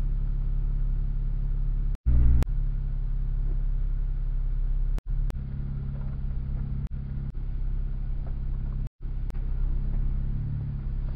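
Jeep engine running at a steady speed, a low even hum. It is broken by three brief drops to silence, with a short louder patch just after the first one.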